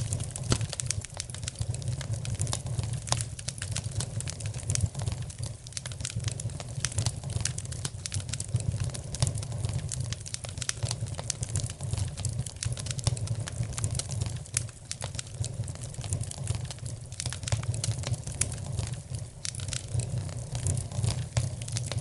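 Wood fire in a fireplace crackling, with frequent small pops and snaps over a steady low rumble.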